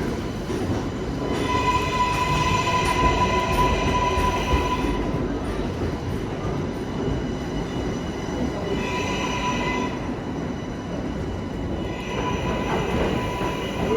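New York City subway train running through the station with a steady rumble, its wheels squealing in three spells, the first and longest lasting a few seconds.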